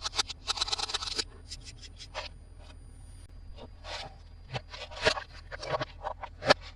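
Hands handling toy packaging and plastic toy parts: a quick run of crackling clicks at first, then scattered taps, clicks and short scratchy rustles, the sharpest click near the end.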